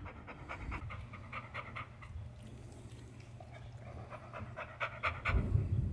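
A large American bully / pit bull panting rapidly, short quick breaths in a steady run: stress panting from fear of a thunderstorm. A louder low thump comes about five seconds in.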